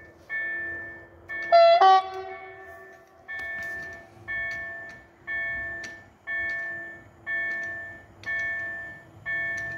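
An electronic warning chime rings about once a second, each stroke a bell-like multi-pitch tone that dies away. About a second and a half in, a short, loud horn blast from the approaching train cuts in over it.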